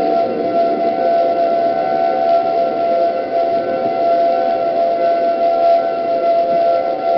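Civil defense siren sounding a steady, unwavering tone over a rushing hiss.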